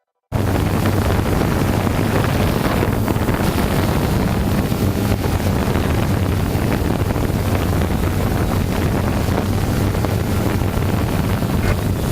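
Steady rushing wind noise on the microphone over a steady low hum, cutting in abruptly about a third of a second in.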